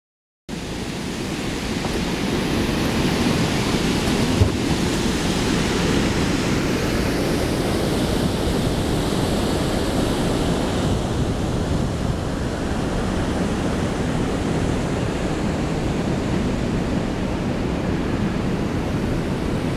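Steady rushing wind buffeting the camera microphone, heaviest in the low rumble, with a single short knock about four seconds in.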